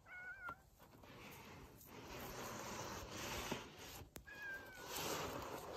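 Domestic cat meowing twice: a short meow at the start and another, slightly falling meow about four seconds in, with a hiss of background noise growing louder between them.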